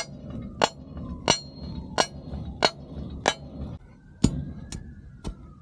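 Steel tamping bar striking down on rock and dirt beside a fence post, seven sharp clinking blows at an even pace of about one and a half a second, with a short pause before the last: packing a wedged rock in to hold the post.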